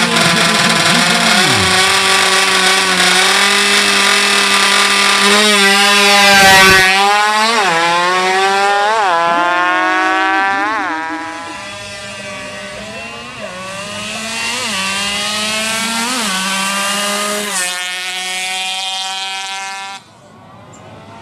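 Tuned 116cc underbone motorcycle engines at high revs: a steady, high-pitched engine note, then from about five seconds in a bike accelerating hard, its pitch climbing and dropping back at each gear change. The sound cuts off suddenly near the end.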